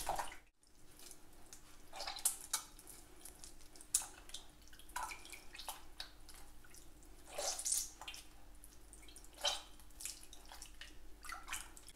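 Hands squeezing and kneading a lump of wheat dough in a bowl of water, with small splashes and drips at irregular intervals, as the starch is washed out of the dough to leave the gluten.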